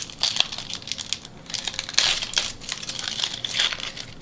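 The wrapper of a 1991 Upper Deck football card pack being torn open and handled, crinkling with many quick, sharp crackles.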